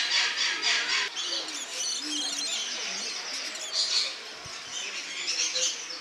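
Rainbow lorikeets calling: a busy run of shrill, rapidly repeated chattering notes, densest in the first second, with further bursts about four and five and a half seconds in.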